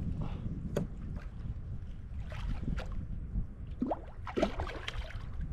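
Water splashing and sloshing against a fishing kayak in short bursts, over a steady low wind rumble.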